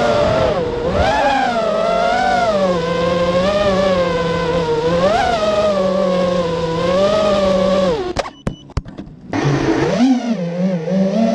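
Go-kart engine heard from on board, its pitch rising and falling with the throttle through corners. About eight seconds in it cuts out almost completely for about a second, with a few sharp clicks, then picks back up and runs at a steady pitch.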